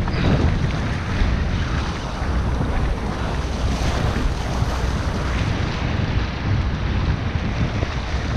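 Wind buffeting the microphone over choppy open-ocean water slapping against a boat's hull.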